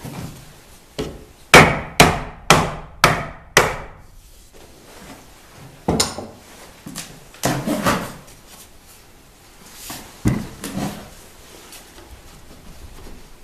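Mallet blows on a timber mortise-and-tenon joint: five quick knocks about two a second, then a few single knocks spread out, as the tenoned post is driven in the mortise during a test fit.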